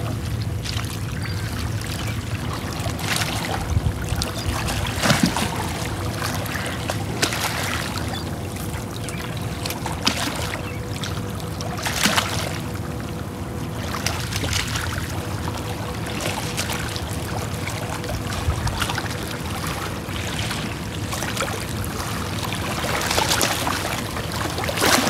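Small waves lapping and sloshing against the rocks at the water's edge, in irregular swishes every second or two over a steady rushing noise, with a faint steady hum underneath.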